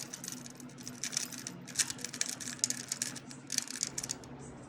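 A pet budgie in its cage making a run of quick, light, high-pitched clicks and ticks, in irregular clusters.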